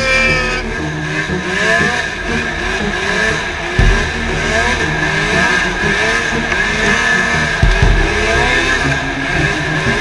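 Snowmobile engine revving and pulling at speed, its pitch rising again and again. There are two heavy low thumps, about four seconds in and near the end.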